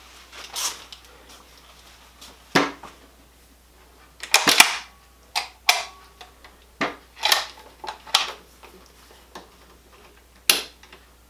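No4 Mk1 Lee Enfield rifle being picked up and handled: a scattered series of sharp clicks and knocks from its metal fittings and wooden stock, the loudest cluster about four and a half seconds in.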